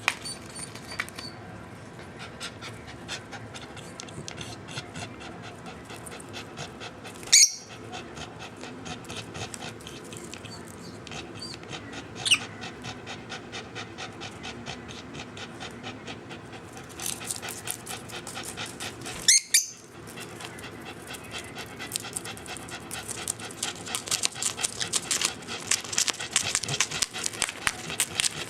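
Bichon Frisé dog panting rapidly and steadily, getting louder in the last few seconds, with three short, sharp, shrill sounds over the top.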